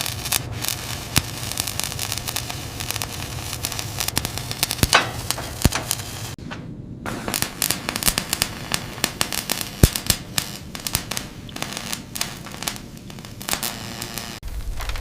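Dense crackling with many sharp clicks and snaps over a low hum. It thins out briefly about six and a half seconds in.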